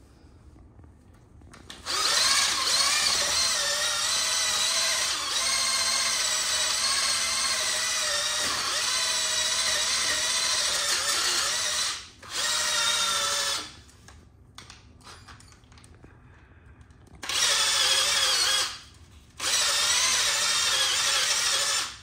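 Power drill spinning a fine-grit sanding disc against floor tile, its motor whining in four runs: one long run of about ten seconds, then three short ones of a second or two each, with pauses between.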